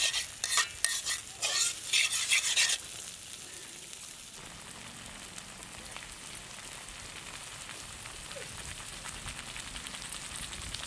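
A metal spatula scrapes and stirs a thick onion and red chilli paste in an iron kadai, several loud strokes in the first three seconds. Then the paste sizzles steadily in oil, frying until its raw smell is gone.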